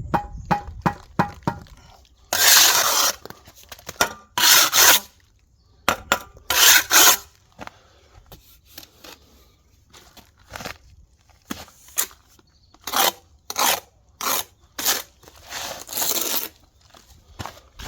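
Steel trowel scraping mortar against concrete block: a series of short, irregular scraping strokes with sharp clicks and knocks between them.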